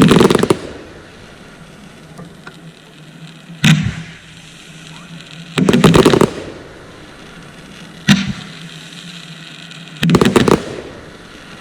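Fireworks bursting in the air: a quick run of sharp reports at the start, a single bang, another rapid cluster a little past the middle, a second single bang, and a last rapid cluster near the end, each with a short echo, over a steady low hum.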